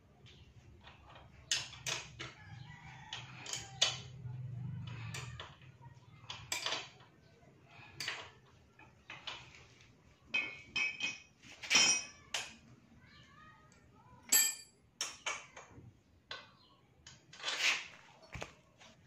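Irregular metallic clinks and taps of a wrench working the rear axle nut and chain adjuster bolts of a Suzuki Raider Fi 150 during a chain set installation. A few of the strikes ring briefly.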